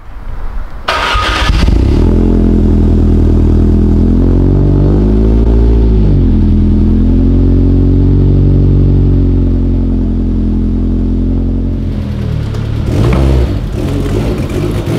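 Lancia Delta HF Integrale Evoluzione's turbocharged four-cylinder engine starting about a second in and then running loudly, with a brief rise and fall in revs around five seconds in and another short blip near the end.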